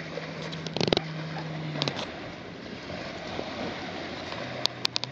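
Small waves washing onto a sandy beach with wind on the microphone, a steady hiss of surf throughout. A low steady hum sits underneath for the first two seconds and again near the end, and a few sharp knocks or bumps come about a second in and just before the end.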